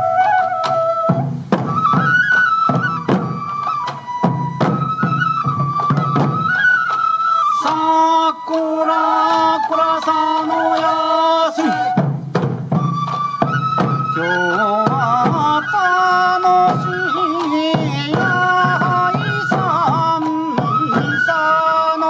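Sansa odori festival music: a Japanese bamboo transverse flute (fue) playing a stepping folk melody over repeated taiko drum beats, with a voice singing a line partway through.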